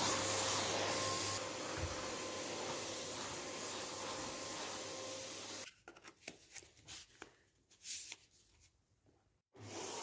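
Kiwi 4105 electric vacuum cleaner running as its head moves over a rug. It cuts off about halfway through, and a few clicks and knocks follow as the wand is handled. It starts up again near the end.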